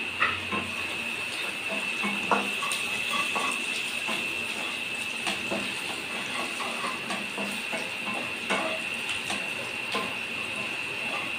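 Wooden spatula scraping and knocking against a kadai while chopped onion, garlic and ginger are stirred in hot oil: irregular clicks and scrapes, over a steady high-pitched whine.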